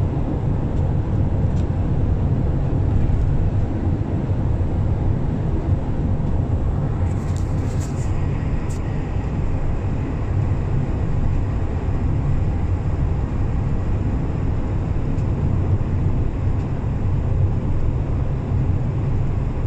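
Steady low rumble of a car driving at road speed, heard from inside the cabin: engine and tyre noise. A short cluster of sharp clicks comes about seven seconds in.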